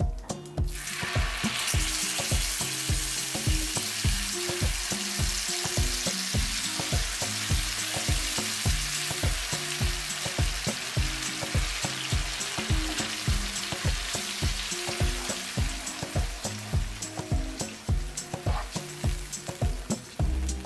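Green yogurt-and-cream marinade sizzling hard in hot oil in a frying pan, the sizzle bursting in about a second in as the marinade goes in and easing off near the end. Background music with a steady beat runs underneath.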